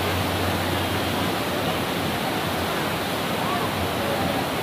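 Whitewater rapids of a mountain river rushing in a steady, unbroken wash of noise.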